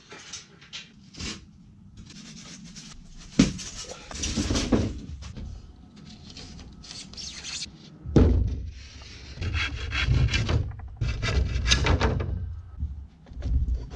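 A hand saw cutting through a pink one-inch extruded-polystyrene foam insulation board, a rasping rub with each stroke, in several runs of back-and-forth strokes.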